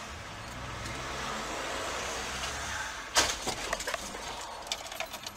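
Car engine and road noise heard inside the cabin, then about three seconds in a sudden loud crash as the car collides with a motorcyclist, followed by a run of sharp clattering knocks.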